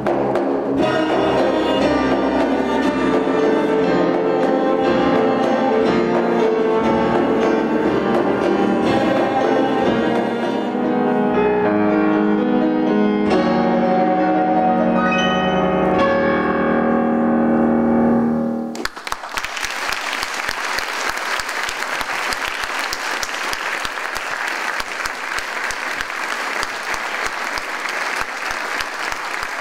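Grand piano playing the closing passage of the rhapsody, its notes thinning into long held chords; the music stops about 19 seconds in and the audience breaks into steady applause.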